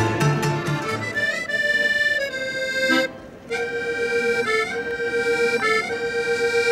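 Instrumental folk music: a reedy melody instrument plays long held notes, with a short break about three seconds in. Plucked low bass notes accompany it for the first second.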